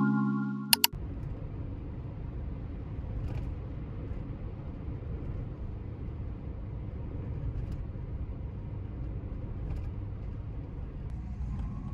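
Music fades out, two sharp clicks come just under a second in, then a steady low rumble with a few faint ticks.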